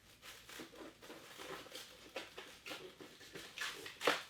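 Thin plastic being pulled and crinkled off a boxed Funko Pop vinyl figure: a run of irregular crackles and rustles, with one louder rip just before the end.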